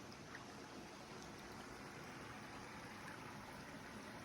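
Faint, steady outdoor ambience in a misty forest: an even hiss with no distinct event.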